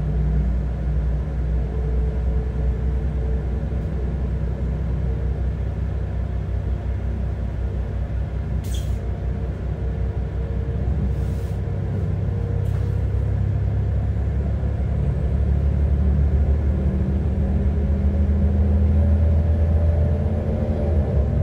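Pesa Link class 632 diesel railcar running, heard from aboard: a steady engine drone over the rumble of the running gear. There are a few short, sharp clicks a little before the middle, and the engine grows louder over the last several seconds.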